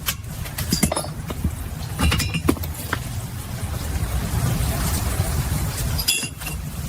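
A few sharp metallic clinks, with brief ringing, over a steady low rumble.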